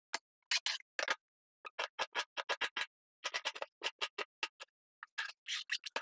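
Knife slicing onions on a plastic cutting board: quick runs of crisp cuts, about four a second, with short pauses between runs.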